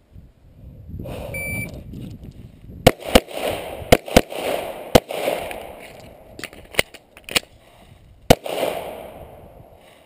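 An electronic shot-timer start beep, then about a second and a half later a rapid string of shots from a long-slide 9mm competition pistol, the loudest falling over the next two seconds with one more near the end and fainter cracks in between.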